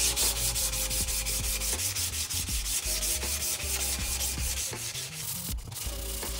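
Strip of 400-grit sandpaper pulled quickly back and forth around an Osage orange hammer handle held in a vise, shoe-shine style: an even, rhythmic rasping of several strokes a second. The sanding smooths down grain raised by wetting the wood.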